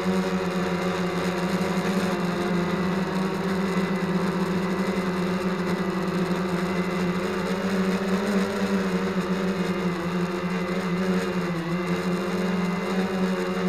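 Multirotor drone's motors and propellers whirring steadily in flight, a continuous pitched buzz that wavers slightly and dips briefly near the end as the motor speed changes.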